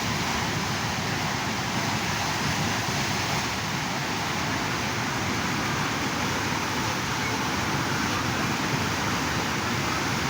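Steady rush of fast-flowing river water, an even noise that holds at one level without a break.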